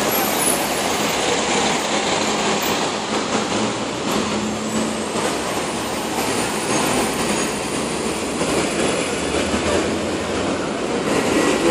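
Steady noise of heavy city street traffic, double-decker buses and cars passing close by.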